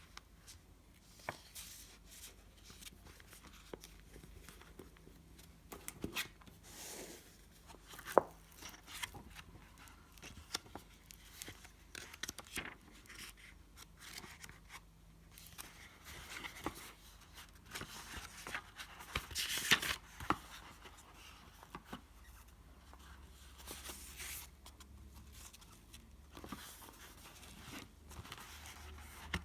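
Paper rustling and pages being handled and turned, with scattered small clicks and taps. The longest, loudest rustle comes about two-thirds of the way through.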